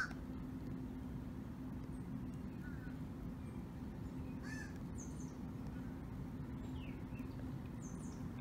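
A crow cawing, once right at the start and again about halfway through, with faint high chirps of small birds later on.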